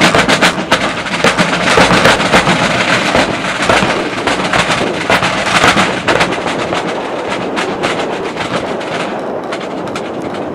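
Military drum corps playing a drum display with rapid, dense drum strikes. The strikes thin out and the sound grows quieter over the last few seconds.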